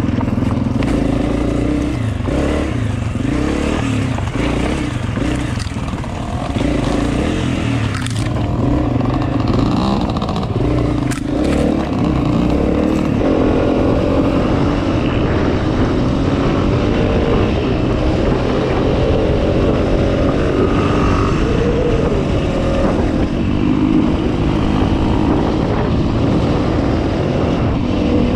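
Dirt bike engine running under the rider, its revs rising and falling as it rides along the trail. A couple of sharp knocks about 8 and 11 seconds in.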